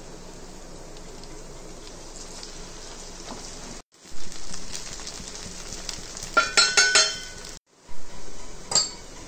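Ground masala paste frying in hot oil in a pan: a steady sizzle, with a quick run of ringing metallic clinks of utensils against the pan about two-thirds of the way through and another clink near the end.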